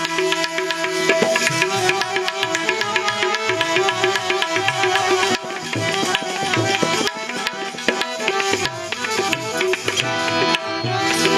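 Instrumental interlude of a Gujarati devotional bhajan: tabla playing a busy rhythm under held melody notes.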